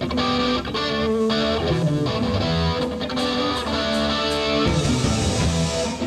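Live rock band playing an instrumental passage, with electric guitar to the fore.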